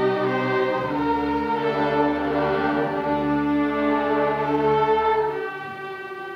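Middle-school string orchestra playing sustained bowed chords. About five and a half seconds in, the low strings stop and the music gets quieter, with the higher strings carrying on.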